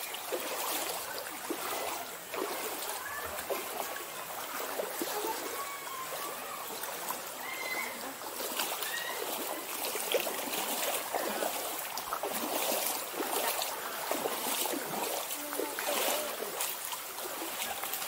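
Running water of a rocky stream, steady rushing with splashes throughout.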